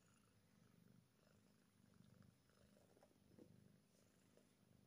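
A domestic calico cat purring faintly, a low rumble that swells and eases in rhythm with its breathing, while being scratched on the head.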